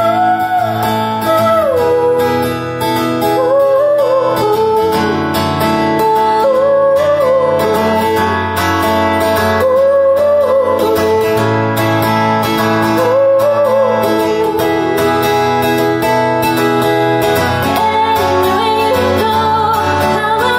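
A woman singing solo pop with her own acoustic guitar accompaniment, performed live, the voice carrying a melody that slides and wavers over sustained guitar chords.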